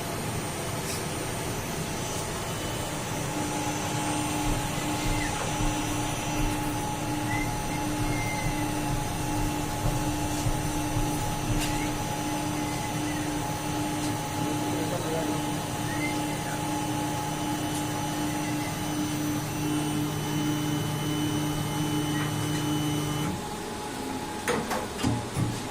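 CNC router spindle running steadily while cutting an MDF sheet, a constant hum over a noisy hiss. It stops abruptly near the end, followed by a few knocks.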